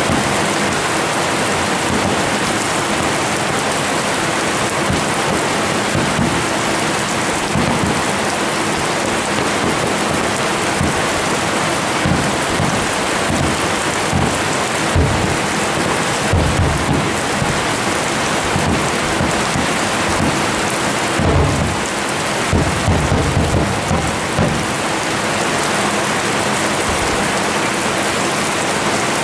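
Fireworks bursting: a continuous dense crackling hiss with repeated deep booms, which come thickest about midway and again a little later.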